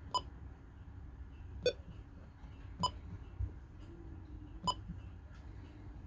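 Icom IC-M330 marine VHF radio's key beeps: four short electronic beeps, irregularly spaced, as its buttons are pressed to step through the menus.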